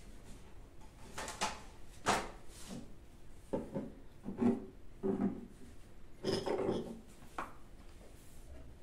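Small glass vases and a glass jar being lifted, slid and set back down on a shelf: a series of light knocks and scrapes, about eight in all, with a few short clinks.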